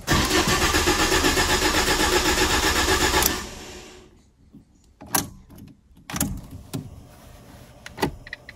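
Ford Ka engine being cranked by its starter for about three seconds without catching, then winding down; it fails to start because the tank seems to be empty of fuel. A few light clicks follow.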